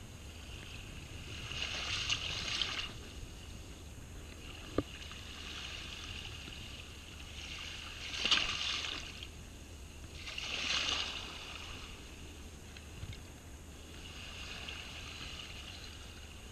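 Small waves washing up over the sand at the water's edge, three rushes of hiss about two, eight and eleven seconds in, the one near eight seconds the loudest. A single sharp click about five seconds in.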